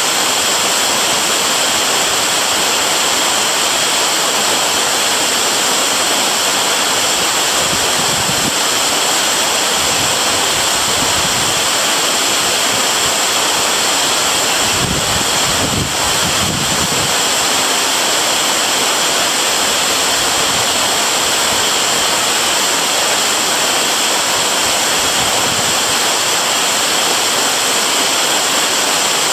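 Waterfall rushing steadily, a loud even roar of falling water, with a few low gusts near the middle.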